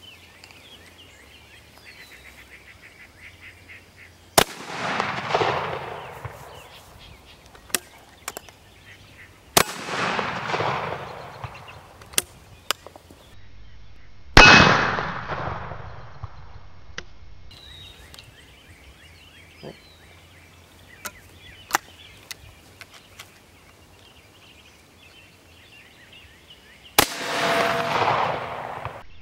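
Four rifle shots several seconds apart, each ringing out and dying away over a second or two. Birds chirp faintly between them, and a few faint sharp clicks are heard.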